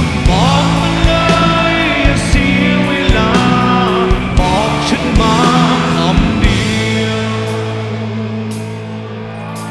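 Live rock band playing with a male lead singer singing over electric guitars and drums. About six and a half seconds in the drum hits stop and the band holds one chord, which slowly gets quieter.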